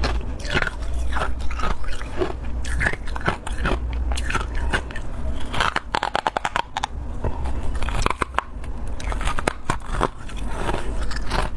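Powdery freezer frost being bitten and chewed close to the microphone: repeated soft, irregular crunches, with a quick run of crackling a little past the middle.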